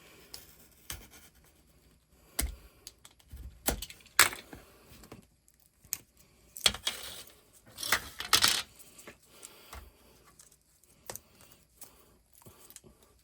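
Electrical cable being opened and stripped by hand: irregular sharp clicks, scrapes and rustling of the plastic sheath and wires, with a few louder clacks of tool and cable about 2.5, 4 and 7 to 8.5 seconds in.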